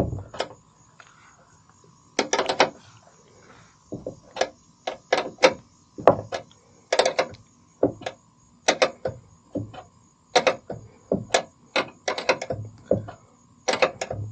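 10 mm hand wrench (not a ratchet) turning a nut down on a truck tailgate shock, a short stroke at a time. A run of metal clinks and scrapes comes about every half second as the wrench is taken off and set back on the nut, after a short quiet stretch near the start.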